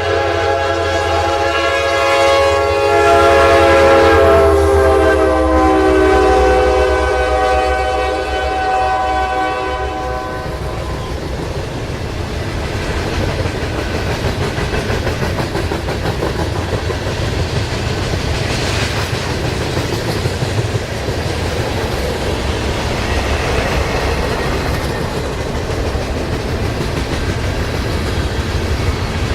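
Diesel freight locomotive's air horn sounding one long chord for about ten seconds, its pitch dropping slightly as it passes. Then the train's wheels clatter steadily over the rails as the cars roll by.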